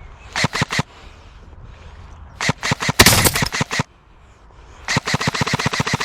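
Airsoft guns firing full-auto bursts, rapid clicking rattles: a short burst near the start, a longer and very loud burst around the middle, and another that starts about five seconds in.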